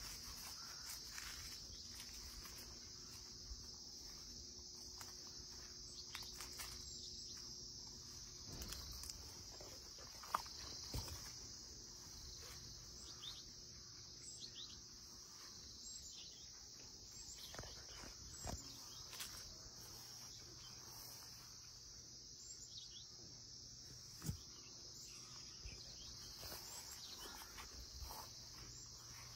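Faint, steady, high-pitched insect chorus, unbroken throughout, with occasional soft clicks and rustles.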